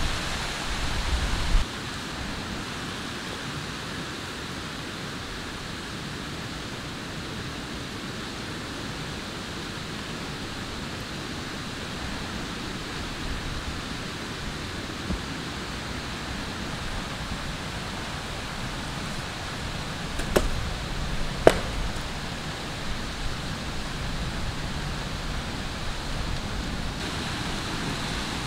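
A hand grinding stone works spices on a stone slab with a low, uneven rumble, stopping abruptly after about a second and a half. After that there is only a steady hiss of background noise, with two sharp clicks about a second apart roughly two-thirds of the way through.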